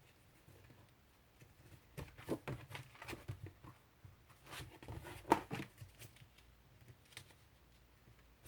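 Paper and plastic stationery items being handled: a run of short rustles, taps and clicks about two to six seconds in, with quiet room tone around it.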